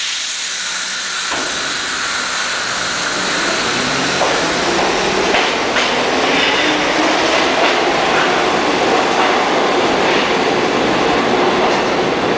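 New York City subway train running through an underground station, with wheels clacking on the rails and a steady rumble. It grows louder over the first few seconds, then holds steady.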